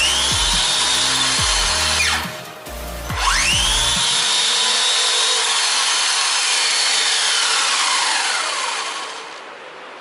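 Electric motor of an RC car whining as it spins up, twice: a quick rise in pitch at the start and again about three seconds in, held high, then winding down near the end. Background music with a steady beat underneath for the first few seconds.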